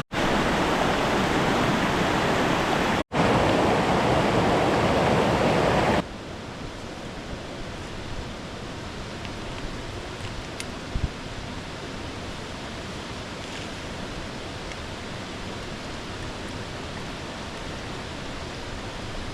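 Rushing water from a waterfall and creek, a steady wash of noise. It is loud for the first six seconds, with two brief gaps, then continues at a lower level.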